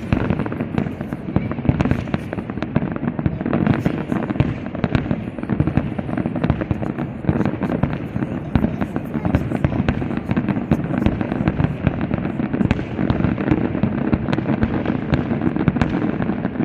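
Fireworks display: a dense, unbroken barrage of rapid bangs and crackles from aerial shells, the closing stretch of a castillo as it ends.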